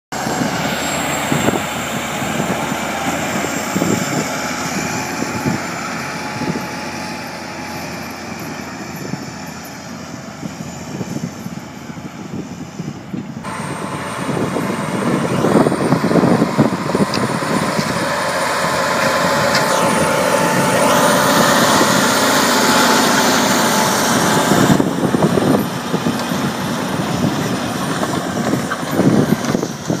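John Deere 9430 four-wheel-drive tractor's diesel engine running under heavy load while pulling a tillage implement through the soil. The sound changes abruptly about 13 seconds in and again near 25 seconds, louder in between.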